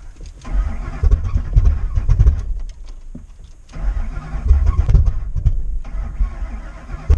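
2005 Ford F-150's engine cranked on the starter in two attempts of about two seconds each, heard from inside the cab; it does not fire back up.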